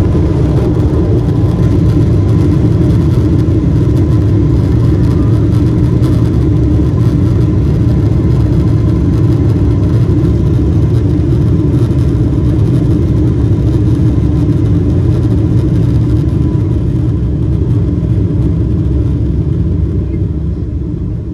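Loud, steady roar of a Boeing 777's engines and airflow heard inside the passenger cabin, around landing. It eases off over the last few seconds as the airliner slows.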